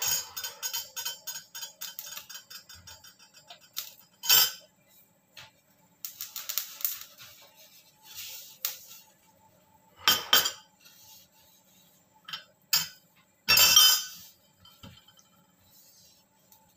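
Metal kitchenware clinking: a rattling clatter that dies away over the first few seconds, then a handful of separate sharp clinks.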